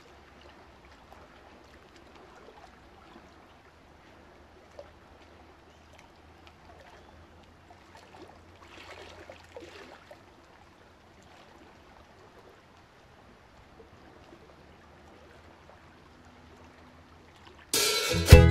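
Faint steady hiss with a low hum, then a song starts abruptly near the end with plucked notes and sharp beats.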